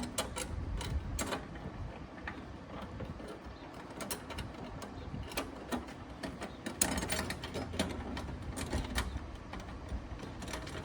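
Irregular metallic clicking and ratcheting in several bursts as a mounting screw is driven into a nutsert and tightened down on a metal toolbox.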